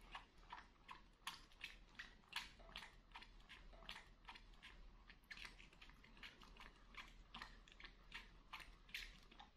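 Baby monkey sucking milk from a plastic feeding bottle: faint, quick mouth clicks of suckling, about two or three a second.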